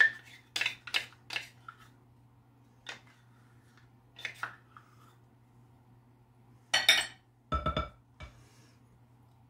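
A stainless measuring cup and a wooden spatula tapping and scraping against the rim of a glass mixing bowl as ketchup is scraped out: a string of light clinks in the first second or so and a few more around three and four seconds, then a louder clatter and several dull knocks about seven to eight seconds in.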